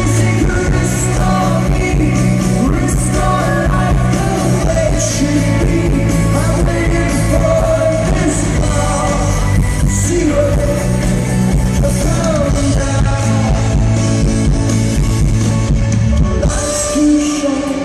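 Live rock band playing loudly, with a male lead singer over guitars, bass and drums; the bass and drums drop away near the end.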